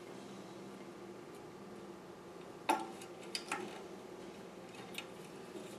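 A few light, sharp metal clicks and ticks, the loudest about two and a half seconds in, from safety wire being worked around the oil mist lubricator's mounting bolts, over a faint steady hum.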